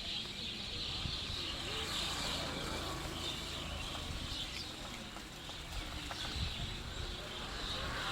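Outdoor ambience: many small birds chirping steadily over a low rumble.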